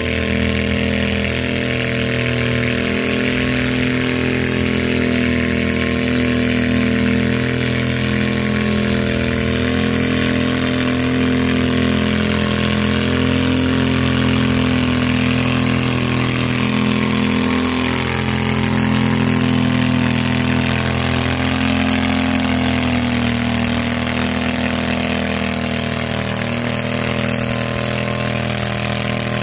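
Engine of a modified garden pulling tractor with open exhaust stacks, running steadily at a nearly constant speed with only slight dips in pitch.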